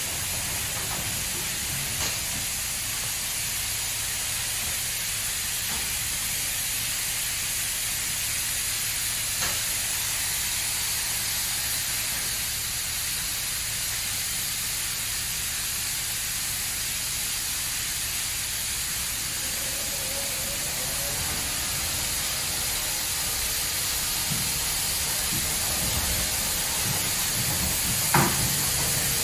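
Superior Sidetrac 700 touch-free car wash spraying high-pressure water over a car: a steady hiss, with a few faint knocks and a sharper thump near the end.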